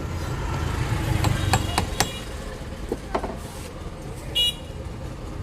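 A thin screwdriver clicking and tapping against the metal retaining tabs and plastic housing of a mixer grinder's motor end cover as it pries the tabs loose around the bush, with a quick run of sharp clicks in the first two seconds and two more about three seconds in. A short high-pitched tone sounds about four and a half seconds in, over a low steady rumble.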